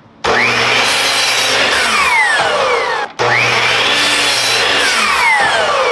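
Electric miter saw making two crosscuts through cedar boards. Each time the motor spins up with a rising whine, the blade cuts through the wood, and the pitch falls away as it winds down. The first cut stops abruptly about three seconds in and the second starts straight after.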